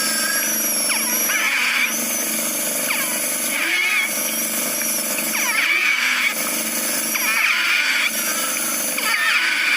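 Wheezing breaths of a 2-month-old infant with severe bronchoalveolitis: high, squeaky, whistling glides over a hissing breath noise, swelling again about every two seconds. The wheezes come from narrowing of the small airways.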